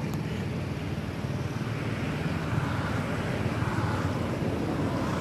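Steady low rumble with no clear events, swelling slightly in the middle.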